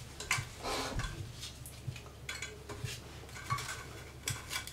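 Light rustling and scattered clinks as a narrow sanding belt is handled and fed around the rollers and metal frame of a small belt grinder.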